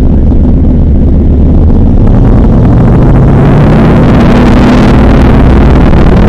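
PZL-104 Wilga light aircraft's piston engine and propeller, heard loud from inside the cockpit. About two seconds in the engine note rises and the sound grows fuller as power is brought up.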